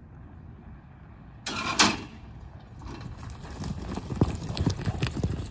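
A loud clatter about a second and a half in, then galloping hoofbeats in arena dirt as horses chase a running steer in a team-roping run.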